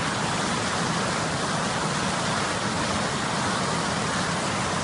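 A mountain river swollen by heavy rain, rushing with a steady, unbroken noise of water.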